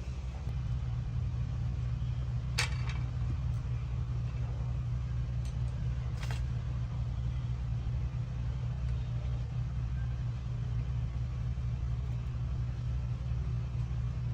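Steady low hum, with two brief clicks, one about two and a half seconds in and another around six seconds in.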